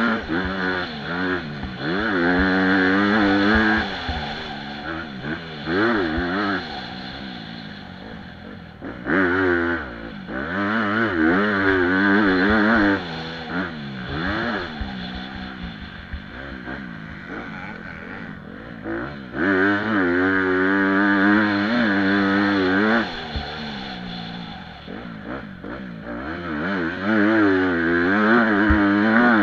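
2018 Honda CRF250 single-cylinder four-stroke motocross engine, heard from on board, revving hard and backing off again and again as it is ridden round the track. Its pitch climbs and drops with each throttle opening and gear change, with several long loud full-throttle pulls between quieter off-throttle stretches.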